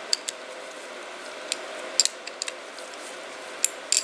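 Light, irregular metallic clicks and ticks as a Torx driver turns the screws that fasten the spool valve body onto a 6.0 Powerstroke fuel injector, walking them down evenly by hand, with a small cluster of clicks near the end.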